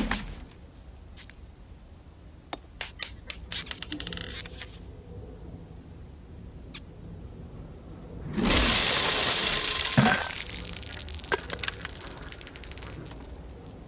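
A few light clicks and ticks, then a sudden loud rush of many small hard candies pouring out and scattering across a wooden floor, with a thump partway through as the canister lands, tailing off into scattered ticks of candies settling.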